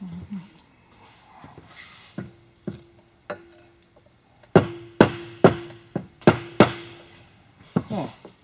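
A series of sharp taps of a tool on metal engine parts, each one leaving a short metallic ring. There are a few light taps first, then a run of six harder strikes about half a second apart, then two more near the end.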